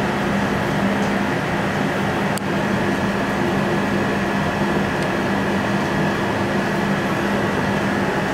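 Steady machine hum and hiss of a fan running, with one faint click about two and a half seconds in.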